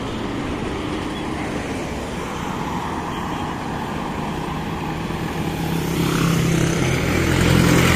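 Steady road traffic of cars and motorcycles going by on a highway. In the last few seconds a box truck's engine hum grows louder as it approaches.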